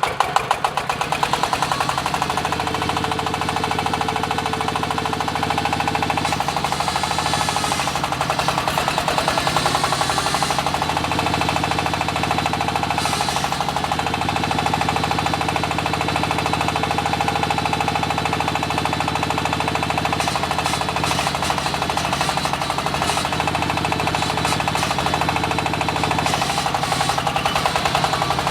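Diesel engine of an AKL-150Y water well drilling rig running steadily just after starting, with a rapid, even knocking beat.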